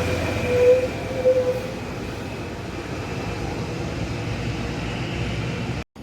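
A bus passing and pulling away, its engine and exhaust fading. A steady high tone sounds over it for the first second and a half. The sound cuts off suddenly just before the end.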